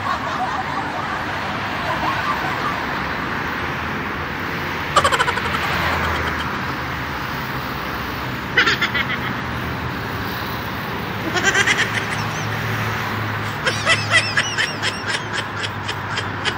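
Steady road-traffic noise from cars passing on the road alongside, broken four times by short bursts of rapid chattering calls, the longest near the end.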